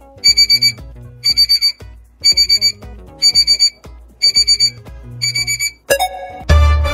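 Electronic alarm-clock beeping used as a quiz thinking timer: a burst of four or five quick high beeps, repeated about once a second, over soft background music. Near the end a short chime sounds and the music grows fuller.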